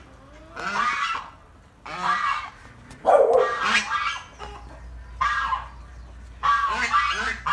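Domestic goose honking repeatedly: five short pitched calls about a second apart, the loudest about three seconds in, from a goose beside the egg it has just laid.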